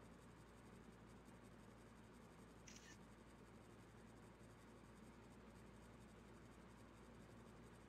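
Near silence: faint room tone with a low hum, and one brief, faint high-pitched sound about three seconds in.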